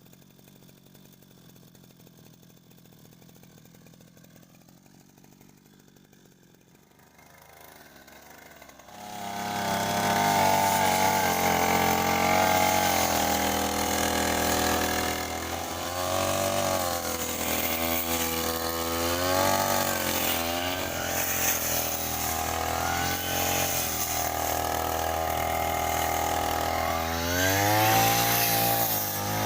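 A small two-stroke petrol grass cutter's engine, faint at first and then running loud from about nine seconds in. Its engine speed rises and falls repeatedly as it is throttled while cutting grass.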